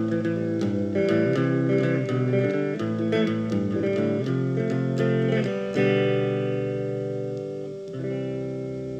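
Solo electric guitar picking the song's closing chords. About six seconds in, a chord is struck and left to ring and fade, and a last chord is struck near the end and left ringing.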